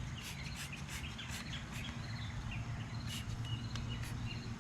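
Short hissing squirts of a trigger spray bottle of foaming degreaser, several in the first second or so and a couple more later. Under them, birds chirp over a steady low hum.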